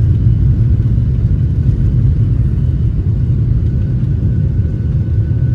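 Airliner cabin noise from inside the cabin: a loud, steady low rumble of the jet engines and airframe, with a faint steady whine above it.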